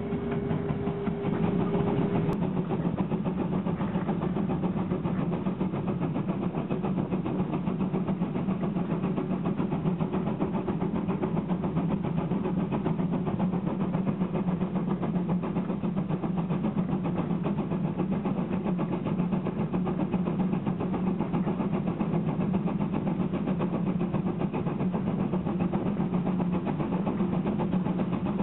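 Narrow-gauge steam train running, heard from on board close to the locomotive: a steady, unbroken rumble of the engine working and the train rolling on the rails. A held whistle note stops about two seconds in.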